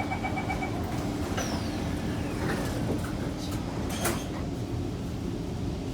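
Kawasaki C151 MRT train's door-closing beeps, a quick even series ending just under a second in, then the doors sliding shut with a knock about four seconds in, over the train's steady low hum. A thin falling whine sounds in between.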